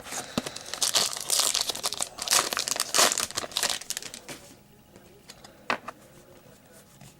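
A trading card pack wrapper crinkling and tearing as it is handled and opened, busy for about four seconds and then quieter, with a single click near the end.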